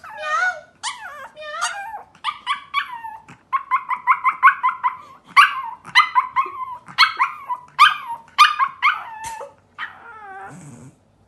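Pomeranian puppy howling in a high, wavering voice that breaks into a quick run of short yips, then ends in a long falling howl near the end.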